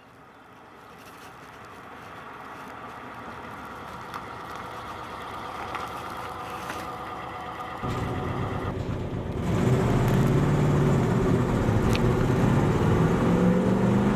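Engine of an old saloon car running and growing louder as the car approaches. It gets fuller and louder about eight seconds in and again a second and a half later, with its pitch edging up near the end.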